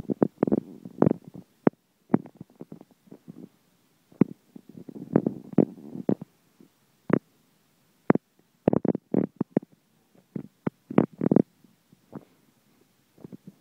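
Long-haired tabby cat purring close up as its belly is rubbed, a crackly, uneven rumble with short breaks.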